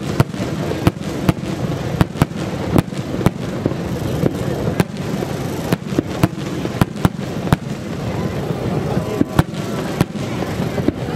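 Aerial fireworks going off in an irregular run of sharp bangs, about two a second, over a steady murmur of crowd voices.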